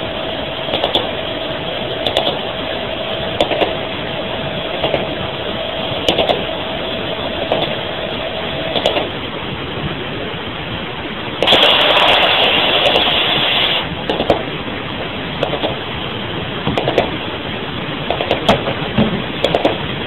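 Radio static hiss with a sharp tick repeating a little over a second apart, the woodpecker-like pulsed interference that is claimed to come from HAARP. A steady whistle tone sounds under the first half and stops. A louder rush of static follows for about two seconds near the middle.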